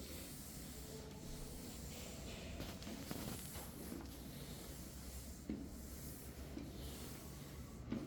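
Flat floor mop wiping across a floor, a faint steady rubbing with a few light knocks.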